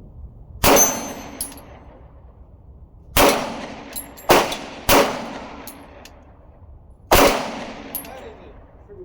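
Springfield XD Mod.3 pistol fired five times at an uneven pace, including a quick pair, each shot sharp and loud. Fainter high metallic pings follow some shots: hits ringing on steel targets.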